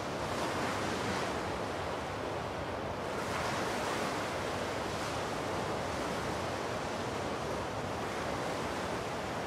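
Steady rushing outdoor ambience, a noise like wind or surf that swells and eases slowly a few times.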